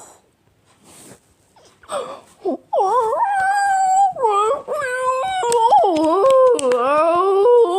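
A high, wavering wail whose pitch slides up and down, rising out of a few short sounds about three seconds in and running loudly on.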